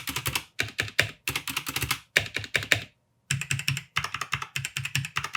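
Mechanical keyboard with red linear switches being typed on: quick runs of key clacks in bursts, with short pauses between them.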